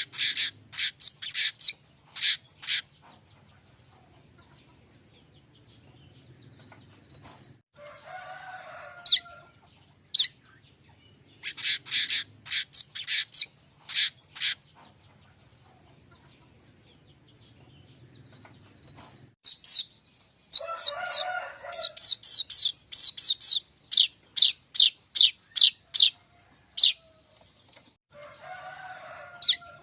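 Streaked weaver (manyar kembang) song used as a lure call: bursts of sharp, rapid ticking chirps, broken three times by a lower, scratchier phrase about a second and a half long.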